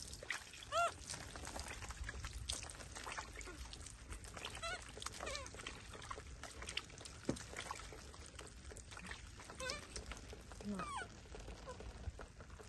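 Water pouring and dripping off a wet baby monkey into a plastic basin of water, with a few short squeaky calls from the baby monkeys, the loudest about a second in.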